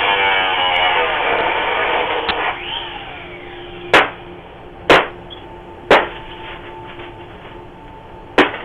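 Angle grinder cutting into a door, heard through a doorbell camera's microphone. It spins down about two and a half seconds in. Then come heavy bangs on the door: three about a second apart, and a fourth near the end.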